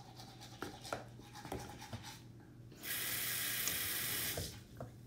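Bathroom sink tap running for about a second and a half as water is run for toothbrushing, then turned off. A few light clicks come before it.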